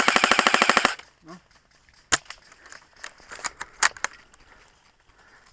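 Airsoft gun firing a rapid full-auto burst of about a second, roughly twenty shots a second, followed by a few single sharp shots a couple of seconds later.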